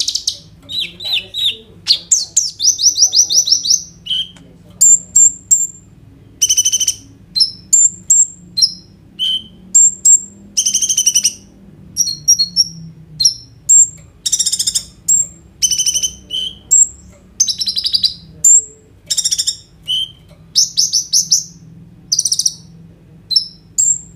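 Caged male kolibri ninja sunbird singing busily. Its song is high and bright, made of sharp single notes and fast rattling trills in quick bursts, in the full, varied "roll tembak" style of a bird in top song.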